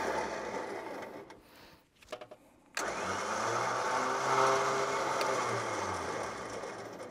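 Electric winch on a Suzuki Grand Vitara's front bar whirring as it spools in synthetic rope, taking up slack to put tension on the line before the pull. It runs, stops about a second in, then starts again sharply near three seconds in and keeps running.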